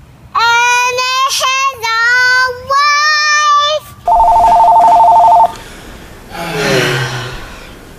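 A high child's voice sings three held notes, each a little higher than the last. Then a steady electronic two-tone warble sounds for about a second and a half, followed by a short falling voice-like sound.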